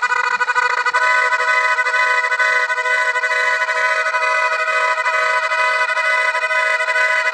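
Sustained horn-like chord of several steady tones, changing to a different chord about a second in and then holding.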